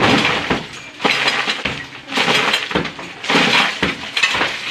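Sledgehammer blows smashing a hollow concrete block wall, about one a second, each crash followed by broken block and rubble clattering down.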